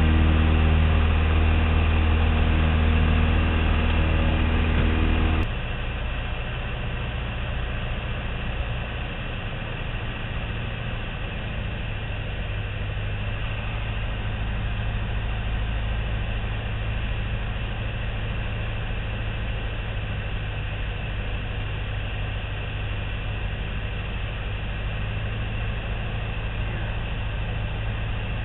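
Piper Cherokee's piston engine and propeller droning steadily, heard inside the cabin. About five seconds in the sound drops suddenly to a quieter, lower drone that stays steady.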